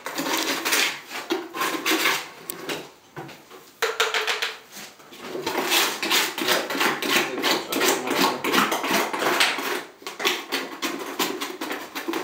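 Repeated scraping and knocking as ready-mixed grout paste is scooped out of a bucket with a cup and loaded into the tube of a grout gun, with brief pauses about three and five seconds in.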